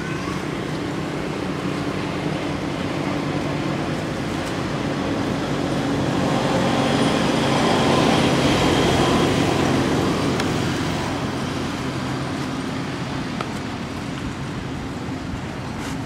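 Engine hum with several steady low tones, growing louder toward the middle and fading again.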